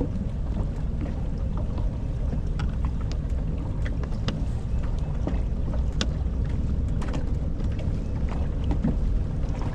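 Steady low rumble aboard a fishing boat, with scattered light clicks and knocks from fishing gear being handled.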